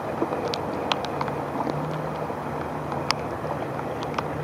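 Rain-swollen water rushing and churning as it spills over a small drop, a steady rush, with scattered sharp ticks of raindrops hitting the plastic bag over the microphone.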